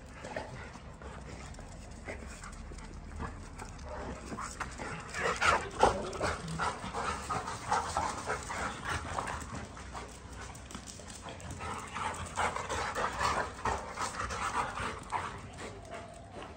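Two Labrador retrievers courting before mating, panting and whining. The sounds come in two busier spells, a few seconds in and again towards the end.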